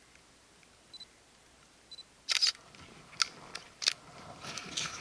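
Sharp clicks and knocks of hiking poles and hands handling a body-worn camera, starting a little over two seconds in and bunching together near the end.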